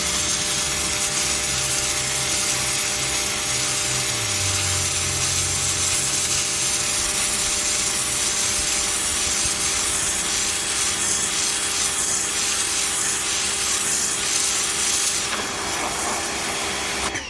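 Electric pressure washer running with its motor humming and a 0-degree nozzle jet hissing against house siding. The spray cuts off near the end.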